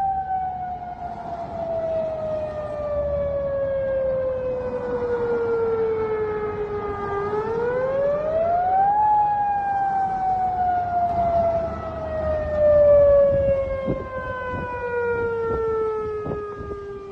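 Tsunami warning siren wailing in a slow cycle, the signal to evacuate to higher ground. Its pitch falls slowly for about seven seconds, rises quickly for about two seconds, then falls slowly again to near the end. A few faint clicks sound in the last few seconds.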